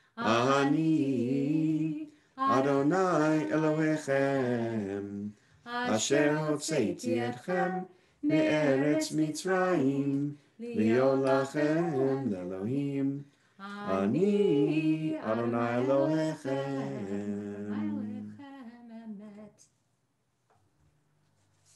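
A man and a woman singing a Shabbat service melody together, unaccompanied, in phrases of a couple of seconds with short breaths between. The singing ends shortly before the close.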